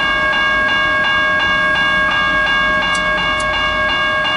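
Level crossing bell ringing with rapid, even strokes, about three a second, while the crossing is active. Under it, a V/Line Sprinter diesel railcar's engine runs with a low hum.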